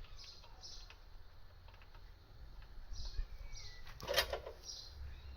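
A car road wheel being hung onto the hub: one sharp metallic clank about four seconds in, among faint handling noises.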